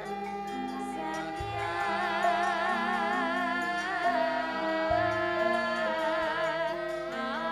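Javanese gamelan music with female sindhen voices singing a wavering, vibrato-laden melody that enters about two seconds in, over stepped metallophone notes. Low strokes sound about a second and a half in and again near the five-second mark.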